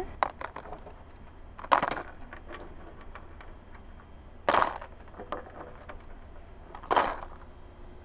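Stones being dropped one at a time into a plastic Tupperware container, clacking against the plastic and against each other: three louder clacks a couple of seconds apart, with lighter clicks between.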